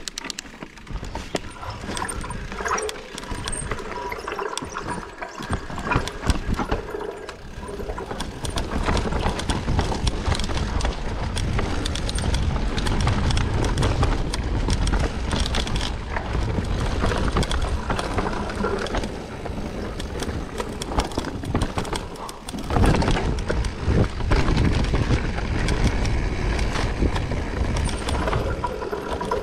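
Mountain bike ridden down a dirt singletrack: tyres running over dirt, rocks and roots with a low rumble, and the bike rattling and clattering with many small clicks. The noise eases briefly about three-quarters of the way through, then picks up again.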